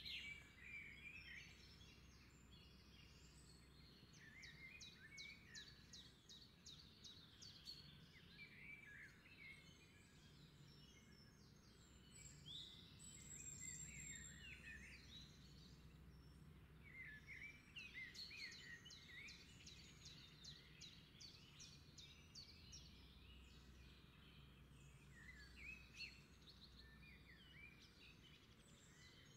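Faint chorus of small birds, with many short chirps and rapid trills overlapping, over a faint steady low hum.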